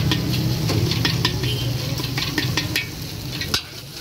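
Long steel ladle scraping and clanking against a large steel wok as diced food is stir-fried, with oil sizzling. The ladle strokes come a few times a second, with a sharper knock about three and a half seconds in, when a low hum underneath drops away.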